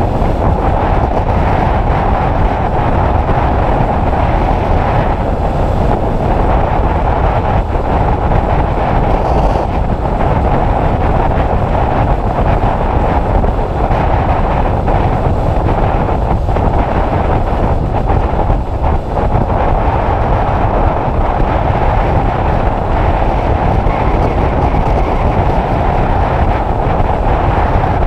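Loud, steady wind noise battering the microphone of a Honda CBF600 motorcycle riding at road speed.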